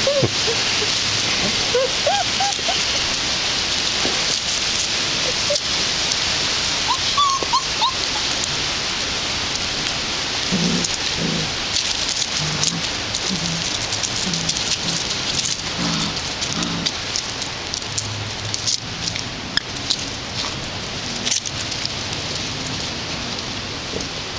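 Puppies tugging at a squeaky toy squirrel over a steady hiss: a few short squeaks near the start and about seven seconds in, and low growling in the middle of the tug.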